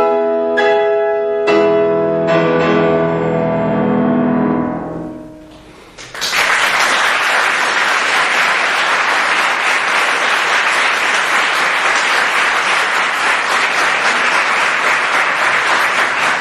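Shigeru Kawai grand piano playing closing chords, four chords struck in the first two and a half seconds and left to ring and die away. About six seconds in, an audience breaks into steady applause.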